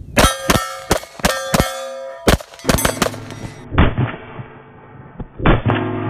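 A rapid string of pistol shots, each followed by the ringing clang of a steel target plate being hit. A little under four seconds in, the shooting gives way to music with strummed acoustic guitar.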